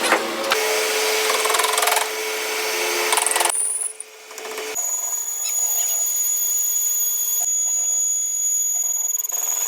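Power tool running in a metal workshop, in several pieces cut together: a rough, noisy run with a steady hum for the first few seconds, a brief dip about four seconds in, then a steadier run with a thin high whine.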